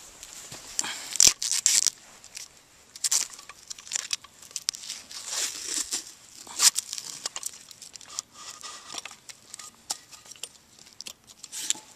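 Tape and paper wrapping being torn and crinkled off an M83 smoke grenade's sealed cardboard packing tube, in several short bursts of tearing.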